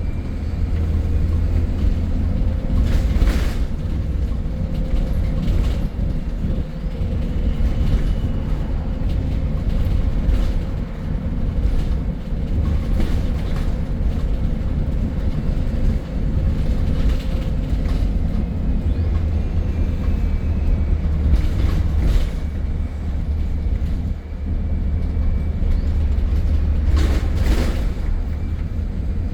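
MAN E300 single-deck bus on the move: a steady low engine and road drone, with a faint steady whine and several sharp knocks or rattles from the bodywork every few seconds.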